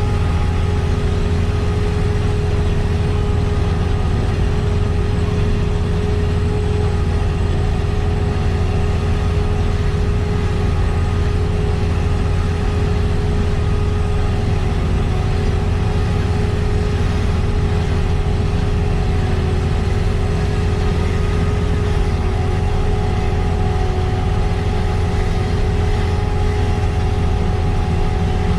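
Heavy farm machinery diesel engine running steadily at constant speed, a strong low hum with a steady whine above it and no change in pitch or level.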